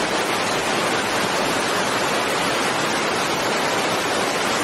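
Muddy floodwater rushing through the open sluice gates of a river dam: a steady, loud, even rush of water noise.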